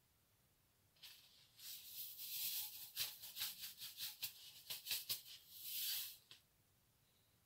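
Iodised table salt shaken out of a tall salt-shaker canister into a cupped palm: the grains rattle and pour in a run of quick, hissing shakes that start about a second in and stop after about six seconds.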